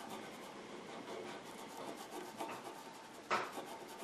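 Cotton swab scrubbing acid rust remover over a steel radio chassis, a faint steady rubbing of repeated short strokes, with one louder stroke near the end.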